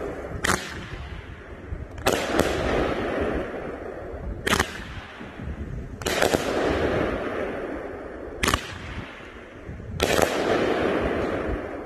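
A 500-gram consumer firework cake firing its last shots: about seven sharp bangs of aerial shells bursting, one every one to two seconds, each trailing off into a fading rumble over a second or so.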